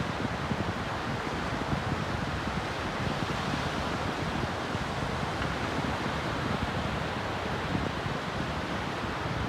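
Sea surf washing onto a shore in a steady rush, with wind buffeting the microphone.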